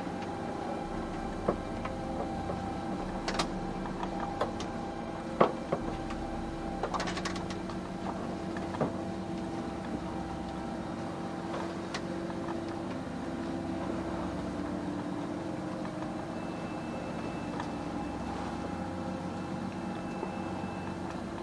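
Sailing yacht's inboard diesel engine running steadily at low revs, keeping the boat head to wind, with its pitch dipping slightly about two-thirds of the way through. A few sharp knocks and clicks sound over it, the loudest about five seconds in.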